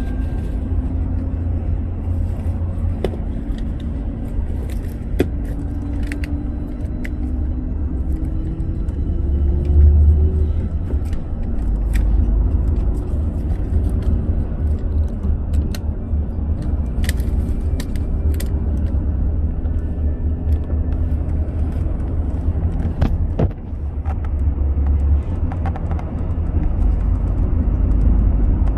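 Car driving on an expressway: a steady low rumble of road and engine noise, with a faint engine tone that slowly rises and falls and a few light clicks.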